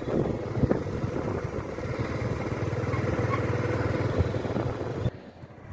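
Motor vehicle running steadily with a low engine hum and road noise, which cuts off abruptly about five seconds in.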